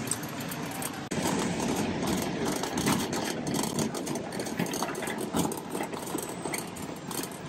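Empty wire shopping cart rolling over a smooth concrete floor, its wheels and basket rattling, louder from about a second in.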